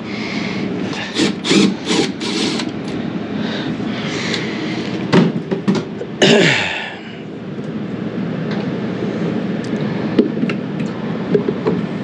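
Milwaukee cordless drill/driver running in short bursts to back out the screws holding a furnace condensate trap, winding down with a falling whine about six and a half seconds in, over a steady hum from the running furnace. A few small clicks follow near the end as the trap is handled.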